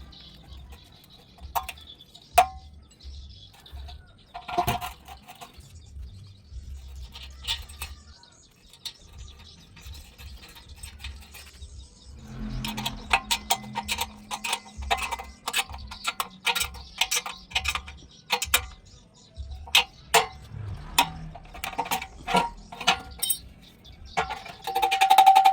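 Metal clinking and tapping from hardware and tools during a dynabolt anchor install: a few separate clinks with a short ring at first, then from about halfway a fast, irregular run of taps and clicks. Music comes in near the end.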